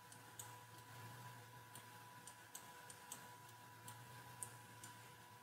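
Near silence: faint room hum with a few scattered, quiet clicks from a computer mouse. The clearest click comes a little after four seconds in.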